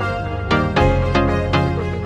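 Background music: a steady bass under a run of plucked or struck notes, about three or four a second.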